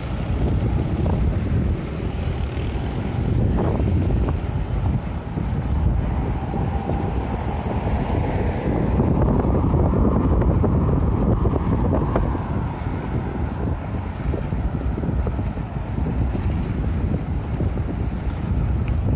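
Wind buffeting the microphone of a camera on a moving bicycle, a steady low rumble, with road traffic underneath and a car going by about ten seconds in.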